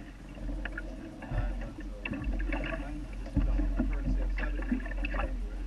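A 1976 Hinckley 43 sailboat under sail, with water running along its hull and wind rumbling low on the microphone. Faint, indistinct voices come and go.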